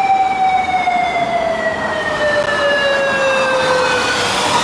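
Japanese police motorcycle siren sounding one long wail that slowly falls in pitch and dies away about four seconds in, over steady street traffic noise.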